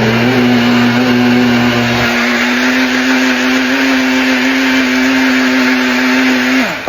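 Blender running at speed with a steady motor whine, chopping chunks of lamb kidney, chicken, salmon and blue cheese in water. Near the end it is switched off and the motor winds down quickly.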